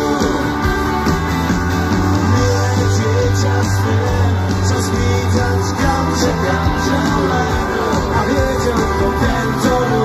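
Rock band playing live through a PA: electric guitars, bass and drums with singing, heard from within the crowd.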